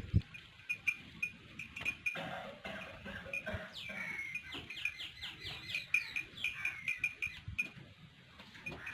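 Small birds chirping: many short, high chirps repeating, with a quick run of falling notes about halfway through.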